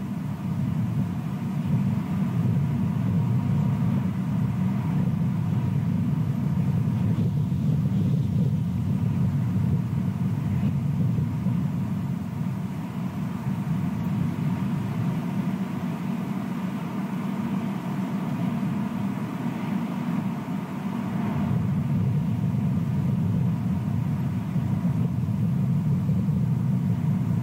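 Steady low rumble of outdoor background noise with no distinct events, and a faint thin hum running through it.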